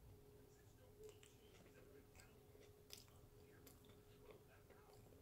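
Faint close-mouthed chewing of a mouthful of deep-fried corn dog, small soft mouth clicks roughly once a second over a faint steady hum.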